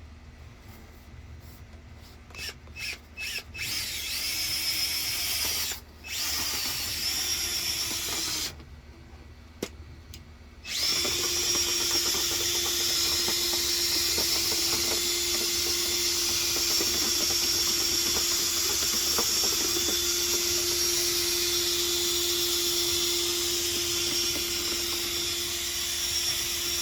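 Power drill spinning a dryer-vent cleaning brush rod in the duct. It starts with a few short trigger pulls, then runs in two longer spells with pauses. From about eleven seconds in it runs steadily, with a constant motor whine.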